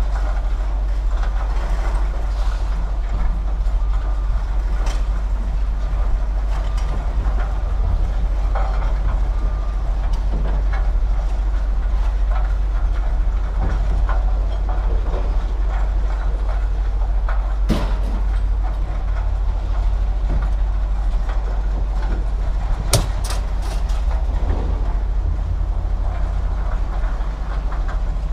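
A large engine running steadily with a deep, even drone, and a few sharp knocks, one about eighteen seconds in and a quick cluster about twenty-three seconds in.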